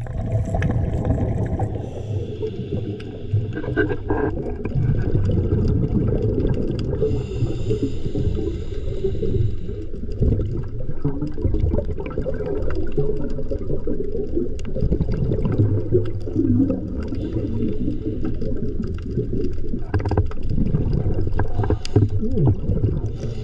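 Underwater recording of a diver: a continuous low rumble of water and bubbling, with a hissing sound coming back for a second or two every few seconds, and scattered small clicks.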